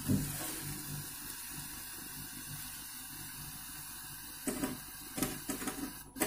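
Steady hiss of untuned TV static from the Sony KLV-32EX330 LED TV's speaker, on with no antenna connected. Near the end come a few sharp clicks as the antenna cable plug is handled at the set.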